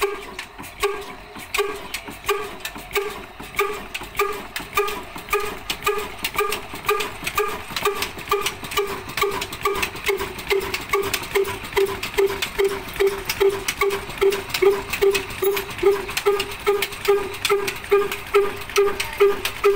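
Old Ruston Hornsby horizontal single-cylinder diesel engine running, its exhaust beating slowly and evenly at about two beats a second. The beats quicken slightly and grow louder toward the end.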